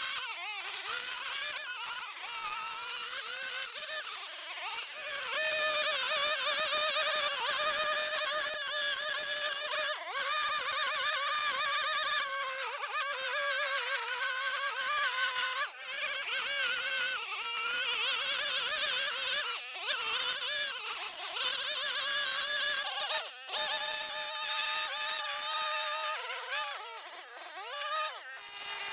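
Gas-powered string trimmer running at high speed while cutting tall, thick grass, its whine wavering up and down in pitch as the line meets the grass. The sound breaks off and jumps abruptly a few times.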